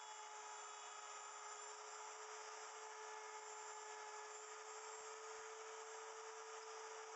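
Wood router on a router milling machine running steadily with a constant whine, cutting into a small block of wood.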